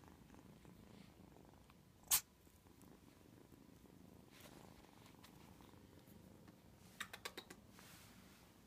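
Tortoiseshell kitten purring softly and continuously, low in pitch. A single sharp click about two seconds in is the loudest sound, and a quick run of four or five clicks comes near the end.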